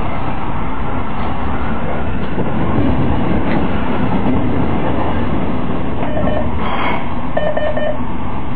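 Nuremberg U-Bahn DT1 train with three-phase AC traction running on the rails, heard from the driver's cab: a steady rumble of wheels and drive. Short runs of rapid beeping tones sound twice in the second half.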